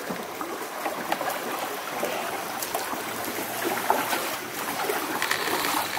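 Water lapping and trickling against the hull of a small paddle boat on a river, a steady wash of small splashes and drips.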